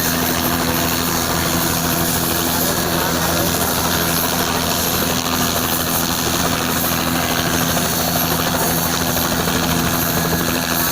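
Helicopter running close by: a loud, steady rotor and engine noise with a low steady hum underneath, unchanging throughout.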